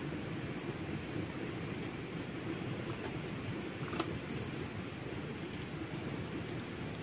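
Crickets chirring in a high, steady trill that breaks off and starts again in bouts, over a low rumbling background noise.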